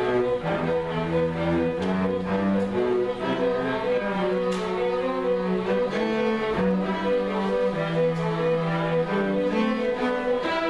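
Student string orchestra of violins, cellos and basses playing a slow passage of long held bowed notes. The low line changes pitch every few seconds under the sustained chords.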